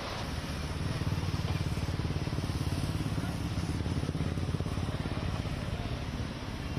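Auto-rickshaw engine running at a fast, even putter close by.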